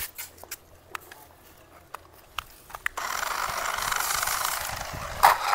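A remote-control toy car's small electric motor and gears whirring as it drives, starting about three seconds in after a few light clicks and knocks.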